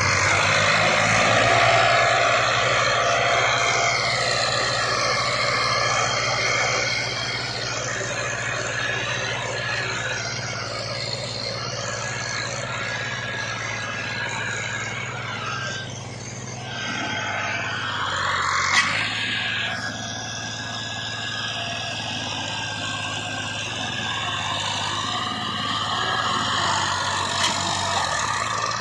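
Small tractor's engine running steadily under load, pulling another tractor and its loaded sugarcane trolley on a chain. There is one brief sharp click about two-thirds of the way through.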